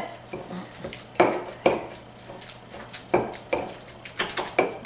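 A stone pestle and a metal tablespoon knocking and clinking against a stone molcajete as onions and cilantro are mashed into guacamole: about eight irregular knocks, a few with a short metallic ring.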